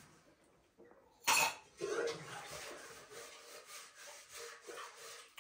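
A man coughs once, sharply, about a second in, from a cold and sore throat; quieter small eating sounds follow.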